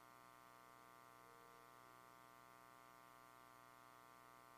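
Near silence: only a faint, steady mains hum with hiss.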